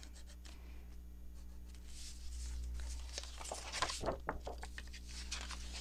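Loose paper book pages being handled: light rustling and small taps and clicks, busiest around the middle, over a low steady hum.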